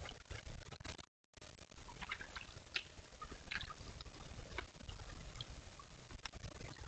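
Shallow rocky creek trickling, with scattered small clicks and taps over it. The sound drops out completely for a moment about a second in.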